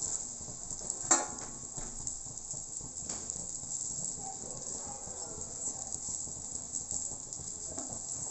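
Chopped okra sizzling steadily as it fries in ghee in a nonstick pan, with a sharp knock of the spatula against the pan about a second in and a lighter one about three seconds in.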